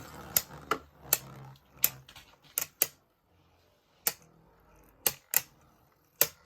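Two Beyblade Burst spinning tops clashing in a plastic stadium: sharp, irregular plastic clacks a fraction of a second to a second apart, with a faint whir of the spinning tops in the first second or so.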